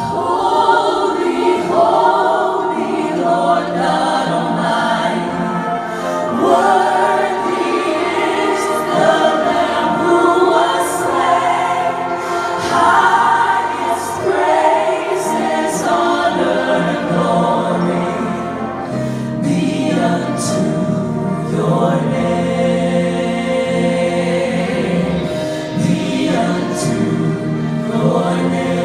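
Choir singing with musical accompaniment, a full, steady choral sound.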